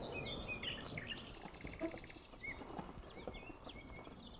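Small songbirds chirping and twittering, many short calls and quick swoops scattered through. Footsteps crunch on gravel at first, fading out within the first second or two.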